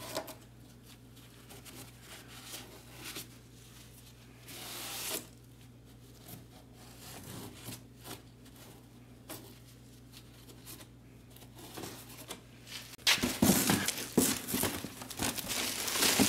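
Faint rubbing and wiping as a gloved hand cleans the gasket groove of a plastic fuel tank's pump opening, over a low steady hum. About thirteen seconds in, a cardboard box and the plastic packaging of a new gasket are opened and handled, much louder and crackly.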